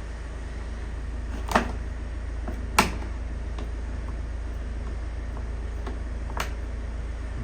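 Three sharp clicks, the second the loudest, over a steady low hum.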